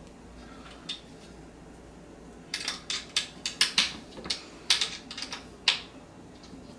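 A quick, irregular run of sharp clicks and taps, starting about two and a half seconds in and lasting about three seconds: metal hardware knocking against the stand's metal frame as a screw is worked into a corner joint by hand.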